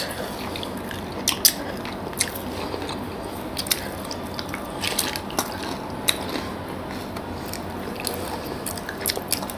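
Chewing of soft, syrup-soaked Bengali sweets (rasgulla and pantua), with scattered short wet clicks and smacks at irregular moments.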